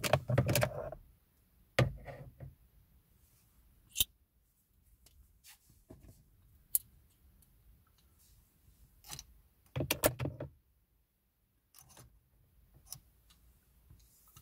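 Scattered clicks and rattles of a metal tool and small screws against plastic dashboard trim. A busier bout of handling comes at the start and another about ten seconds in, with a few sharp single clicks between.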